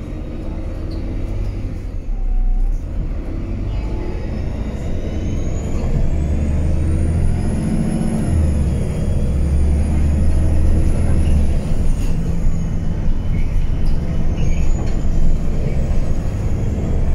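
Irisbus Crossway 12 LE city bus heard from inside the passenger cabin, its diesel engine running under load as the bus gets louder. A high whine rises, holds, and falls away about twelve seconds in, then rises again near the end.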